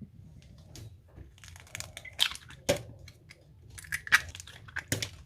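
Kitchen handling while pancake ingredients are prepared: a run of irregular sharp clicks and crackles, a few of them louder, such as a utensil or shells against a bowl.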